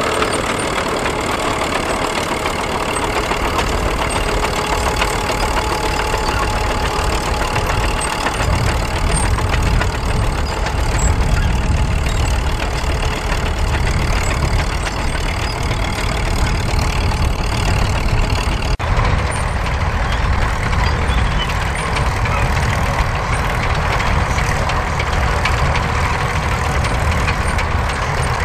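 Vintage crawler tractor engine running steadily as the tractor works the field pulling a plough. The sound changes abruptly about two-thirds of the way through to another crawler's engine.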